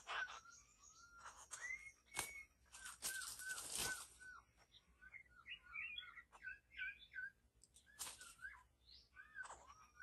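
Bird calls: a run of short whistled notes, many shaped like small arches, crowding into a jumbled twitter around the middle. Several short hissing bursts are mixed in, the strongest about three to four seconds in.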